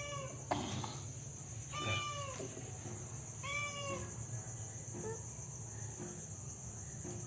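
A domestic cat meowing: three short meows, each rising then falling in pitch, at the start, about two seconds in and about three and a half seconds in. A steady chirring of crickets carries on behind.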